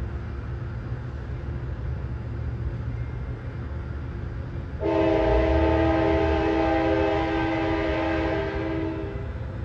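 Sounder commuter train's horn sounding one long multi-note blast of about four seconds, starting abruptly about five seconds in, over the steady low rumble of the train pulling away.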